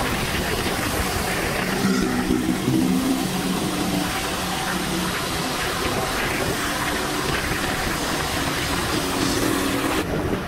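Riding a motorcycle on a wet road: a steady rush of wind and tyre noise, with an engine hum coming up through it about two seconds in and again near the end.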